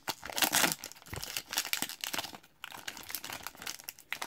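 Foil wrapper of an Upper Deck hockey card pack being torn open and crinkled by hand. Irregular crackling throughout, loudest in the first second, with a brief lull about halfway through.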